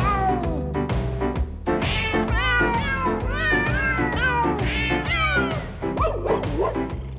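Novelty song made of cat meows sampled and pitched to play a melody: many short meows in quick succession over a backing track with a steady bass beat. About six seconds in, a lower, wavering cat yowl takes over briefly.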